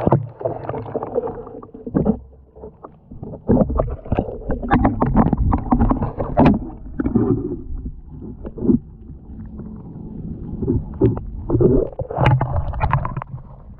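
Water sloshing and gurgling in irregular splashes and thuds, over a low wind rumble on the microphone.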